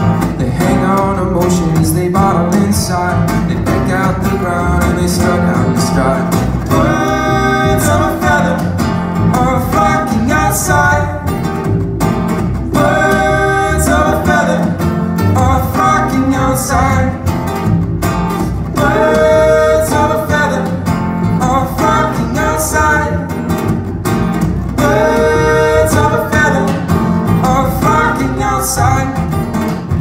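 Live acoustic band playing: two acoustic guitars and an upright bass together, with singing over them.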